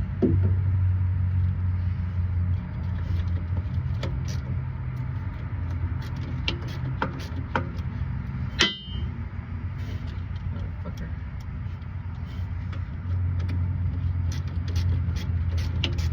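Scattered metal clinks and taps of hand tools over a steady low hum, with one sharp, ringing metal clang about halfway through.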